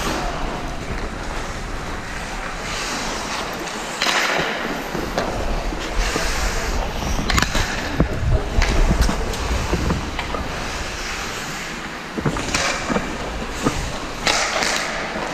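Ice hockey skates scraping and carving the ice in repeated hissing swells, with a few sharp clacks of sticks or puck, over a low rumble.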